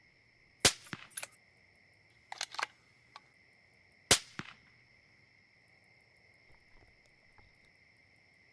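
Two rifle shots about three and a half seconds apart, with lighter clicks and rattles between them. A steady high-pitched hum runs underneath.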